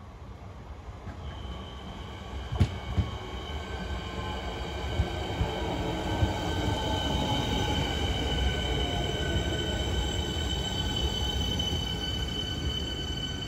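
Siemens Nexas electric train running in along the platform, growing louder as it nears, with steady high-pitched wheel squeal and a motor whine that falls in pitch as it slows. A few sharp clacks of wheels over rail joints, the loudest about two and a half seconds in.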